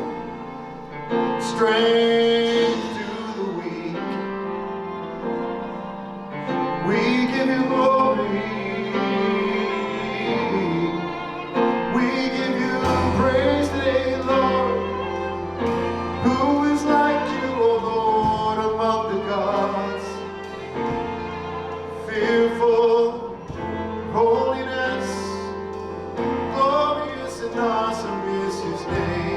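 Church worship song: voices singing over instrumental accompaniment, with a deep bass coming in partway through.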